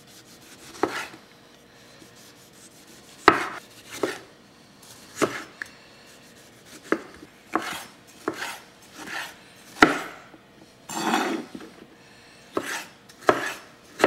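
Chef's knife slicing tomatoes on a wooden cutting board: an uneven series of cuts, each ending in a knock of the blade on the wood.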